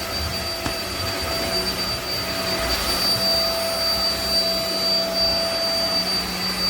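NADALY ME02 cordless stick vacuum running steadily at full power, a constant hum with a high-pitched whine.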